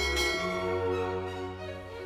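Background orchestral music with slow held string notes.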